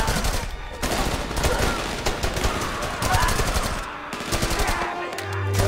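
Rapid automatic rifle fire in long bursts of overlapping shots, with brief lulls about a second in and near four seconds. Near the end a low held music note comes in.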